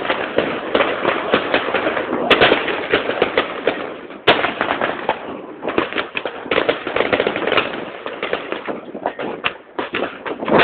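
Many New Year's Eve fireworks and firecrackers going off at once, a dense, continuous crackle of overlapping bangs, with a couple of sharper cracks standing out about two and four seconds in and the barrage thinning a little near the end.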